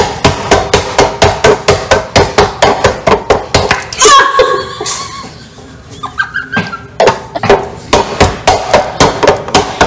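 Rapid, steady slapping of hands on a stone kitchen countertop, about five slaps a second. It breaks off about four seconds in for a woman's shout, then starts again.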